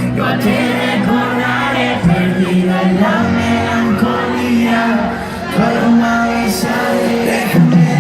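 Live pop music: a band with a stepping bass line, with voices singing over it.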